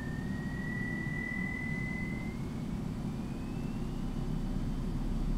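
Two 12-inch subwoofers in a ported box playing a very low sine tone from a signal generator, swept slowly upward from about 17 Hz to 27 Hz, with a faint high whine that rises in pitch along with it. The sweep is searching for the box's upper impedance peak, above its port tuning.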